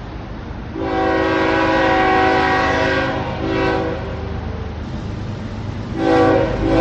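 Train horn sounding: one long blast of several notes together lasting about two and a half seconds, a short blast right after, then two short blasts near the end, over a steady low rumble.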